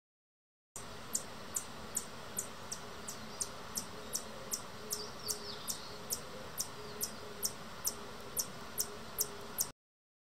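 Outdoor ambience of a chirping animal: a very high, sharp chirp repeated evenly about two and a half times a second over a steady hiss, with one short warbling call near the middle. It starts abruptly about a second in and cuts off just as suddenly shortly before the end.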